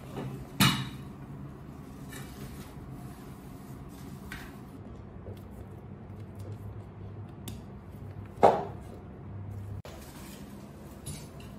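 A metal curtain rod and its finial clinking and knocking as they are handled and screwed together. Two sharper metallic knocks stand out, one about half a second in and one about eight and a half seconds in, among lighter clicks.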